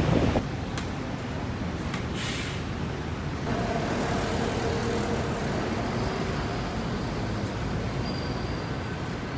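Steady road traffic noise, with a brief hiss about two seconds in.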